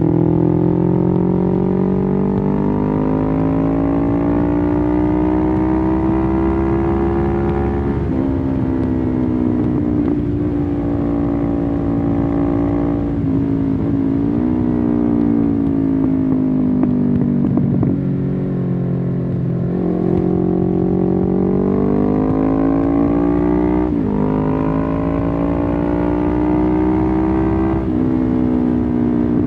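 1993 Suzuki GS500E's air-cooled parallel-twin engine, loud through a Takkoni slip-on exhaust with the dB-killer removed, heard from the rider's seat while riding. The pitch climbs in each gear and drops at every upshift, several times over, with a stretch of slowing down midway before it pulls up through the gears again.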